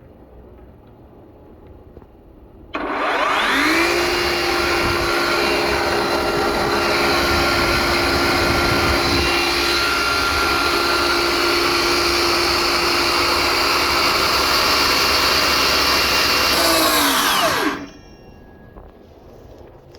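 Battery-powered Flex 12-inch miter saw's motor and blade spinning up with a rising whine about three seconds in, running at steady speed for about fifteen seconds, then winding down with a falling whine.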